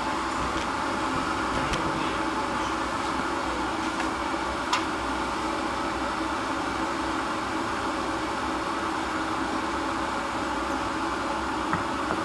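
Steady whir of a fan with a low hum, cutting off abruptly near the end.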